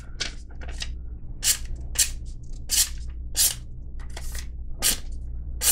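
Small Kizer folding knife making a series of short, crisp slicing cuts through paper, about ten strokes roughly two-thirds of a second apart. The edge cuts but is a little short of razor sharp, which the reviewer thinks a little stropping would fix.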